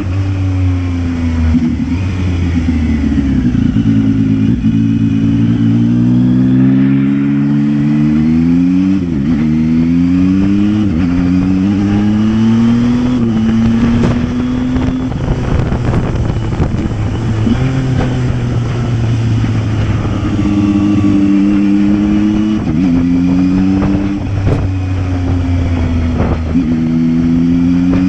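Zontes 703F motorcycle's three-cylinder engine on its stock exhaust, under way and pulling up through the gears. Its pitch climbs and drops back at each shift, several times over, with a steadier cruising stretch in between.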